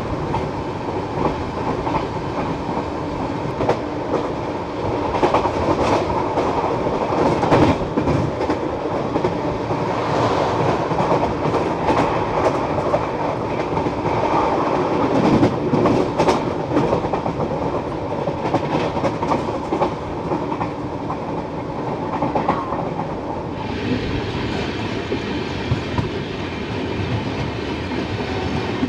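Indian Railways express coach running fast on the rails, its wheels clattering over the rail joints, heard from the open doorway. Near the end the hiss eases as the train slows into a station.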